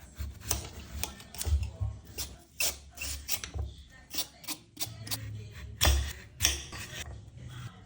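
Irregular clicks, knocks and clatter of hard objects being handled, a dozen or more sharp strikes at uneven intervals, over a low steady hum.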